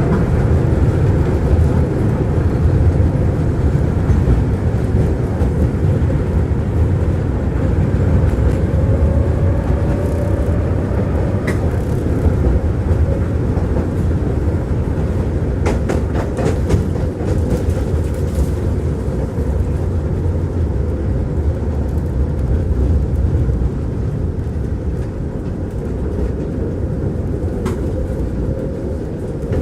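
Tram running along the track, heard from inside the passenger car: a steady low rumble of wheels and running gear, with a faint rising whine about a third of the way in and a few sharp clacks from the wheels.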